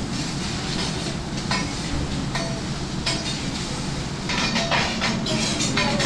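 Teppanyaki chef's metal knife and spatula clinking and scraping on the steel griddle as he cuts and moves the meat: irregular clinks, busier about two-thirds of the way through, over a steady low rumble.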